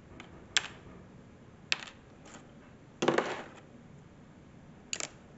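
Plastic tabletop miniatures and their loose broken-off parts being handled and set down on a hard tabletop: a few sharp separate clicks, with a longer clatter about three seconds in and a quick double click near the end.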